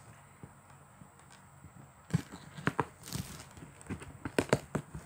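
Stretch plastic wrap on a cardboard parcel crinkling and crackling as the box is handled. Fairly quiet at first, then irregular crackles and taps from about two seconds in.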